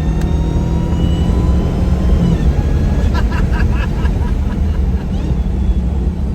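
Supercharged 6.2-litre Hemi V8 of a Dodge Hellcat running under way, heard from inside the car with the windows down: a steady, loud, low engine rumble. A thin whine rises over the first two seconds, with a drop in engine pitch about two seconds in. The whine is the supercharger, made louder by a newly fitted JLT Performance intake.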